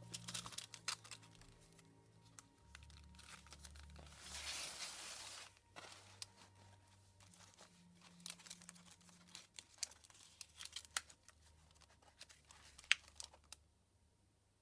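Paper pages and flaps of a mixed-media sketchbook being handled and turned, with crinkling, rustling and small clicks, and a longer sweep of paper about four seconds in. Soft background music with low sustained notes runs underneath and fades out near the end.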